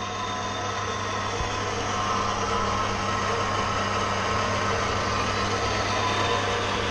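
Horizontal metal-cutting band saw running: a steady electric-motor hum with a hiss from the blade and gearbox, growing a little louder over the first two seconds and then holding even.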